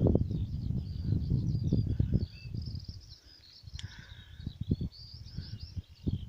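Northern lapwing (peewit) calling with short, squeaky, un-birdlike notes, like a squeaky dog toy, again and again. Wind rumbles on the microphone in the first couple of seconds.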